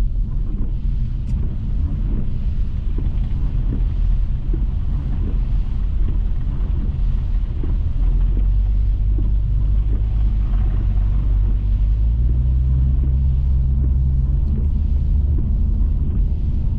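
Steady low rumble of a Subaru Outback's engine and tyres on a wet road, heard from inside the cabin while driving in heavy rain; the rumble grows louder from about eight seconds in.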